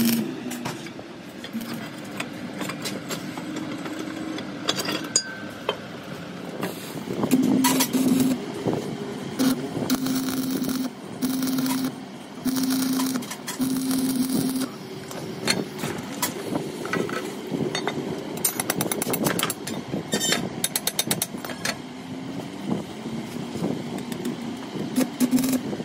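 Stick (arc) welder laying short runs on a truck tie rod end: each strike of the arc brings a steady hum and crackle lasting about a second before it is broken off, repeated several times. Sharp clicks and quick taps fall in the pauses between runs.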